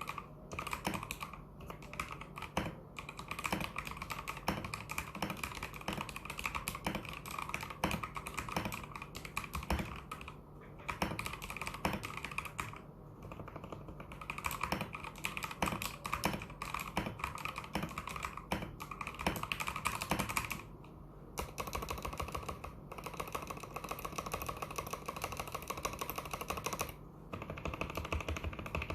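Typing on a fully modded Vortexseries VX64 Lite mechanical keyboard with Gateron Yellow linear switches and XDA-profile keycaps: a dense, rapid run of keystrokes broken by a few short pauses.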